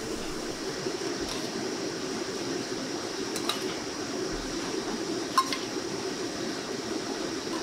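Steady hum of a kitchen's ventilation fans, with a few light clinks of a metal spoon against a metal bowl. The loudest clink comes about five seconds in and rings briefly.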